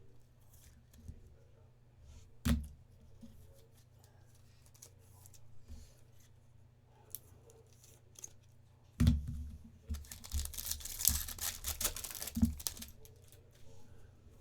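A couple of knocks, then card-pack wrapping being torn open and crinkled for a couple of seconds.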